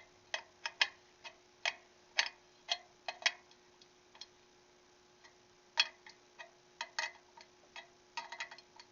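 Spoke wrench clicking against the spoke nipples of a motorcycle wheel as the spokes are tightened about a turn and a half each. It makes irregular sharp metallic clicks, some in quick clusters.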